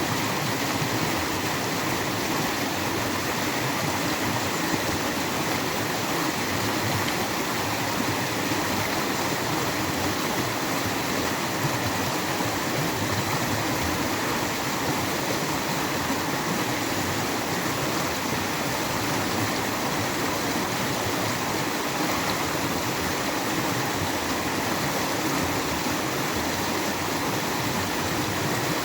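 Natural running water flowing steadily, an even, unbroken rushing.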